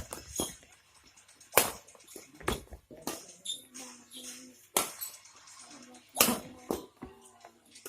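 Badminton rackets striking a shuttlecock during a rally, sharp smacks about every second and a half, with faint distant voices between.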